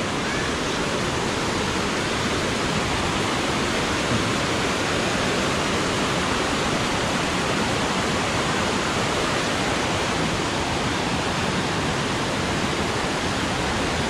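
Fast-flowing mountain stream, swollen with rainy-season water, rushing over rocks and small drops: a steady, even rush of water, very strong.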